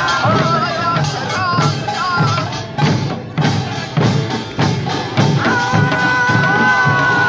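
Korean pungmul band of buk barrel drums and janggu hourglass drums beating a steady rhythm, with a high wavering melody line above that settles into one long held note about five and a half seconds in.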